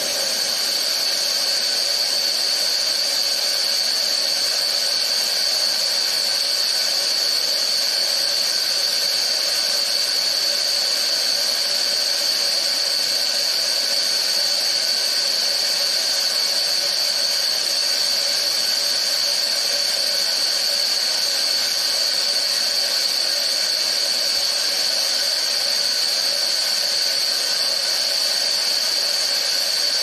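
Steady hiss with a high whistle running through it, typical of pressurised gas flowing through a valve or fill line as the rocket's tank is filled for a cold flow test.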